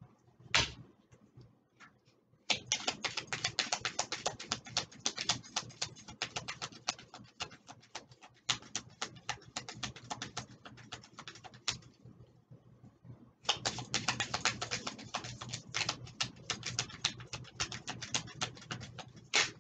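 Deck of oracle cards being shuffled by hand: a rapid run of light clicks that pauses for about a second and a half just past the middle, then goes on.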